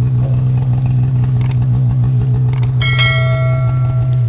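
Snowmobile engine held at steady high revs while the sled runs through deep powder. Two short clicks and then a ringing bell chime are laid over it near the end, from the subscribe-button animation.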